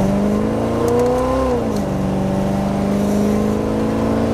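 454 big-block V8 with peanut port heads pulling a pickup under acceleration. The engine note climbs for about a second and a half, drops at an upshift, then climbs slowly again.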